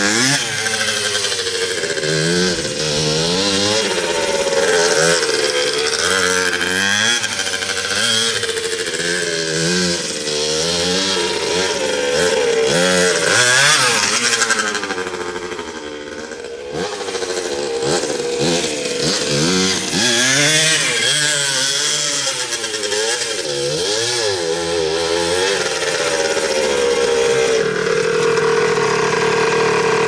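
Suzuki RM60's 60cc two-stroke single-cylinder engine revving up and down over and over, its pitch rising and falling. It dips quieter for a moment about halfway through, then settles to a steadier idle near the end.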